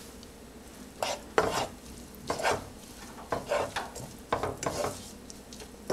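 A spatula scraping through sauteing onions and spice blend in a frying pan, stirring in strokes about once a second, over a faint sizzle of the onions frying in oil.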